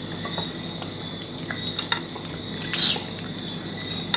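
Hard-boiled eggshells being cracked and peeled off by hand: faint scattered crackles and clicks, with a brief high squeak about three seconds in and a sharper click at the very end.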